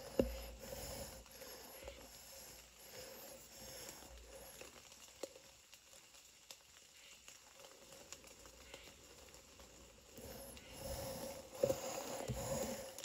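Quiet woodland with faint rustling and scattered small clicks of a hunter shifting and handling a scoped rifle while holding on aim, over a faint steady hum. The rustling grows louder near the end.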